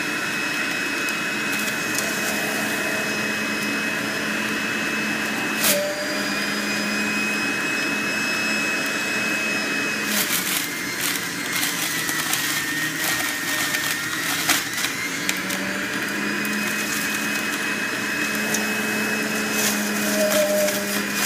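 Breville BJE510XL centrifugal juicer running with a steady motor whine while parsley is fed through it. About ten seconds in, as the greens are pressed down the chute, the motor's pitch sags under the load and the shredding disc crackles, then the whine climbs back to speed over a few seconds; a single knock of the pusher sounds near six seconds.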